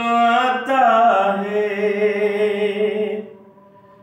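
A man singing an unaccompanied Urdu devotional song (manqabat), drawing out long held notes with a pitch change about two-thirds of a second in, then breaking off a little after three seconds in.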